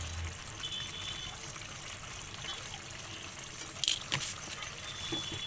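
Chicken korma with yoghurt cooking in a pan, a faint steady sizzle, with two sharp clinks of a spoon against the pan about four seconds in.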